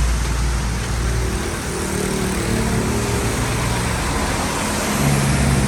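Motor vehicle running with steady road noise and a low engine hum whose pitch shifts slightly.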